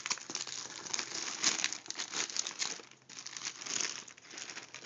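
Crinkling packaging being worked and torn open by hand, a run of irregular crackles with a short pause about three seconds in.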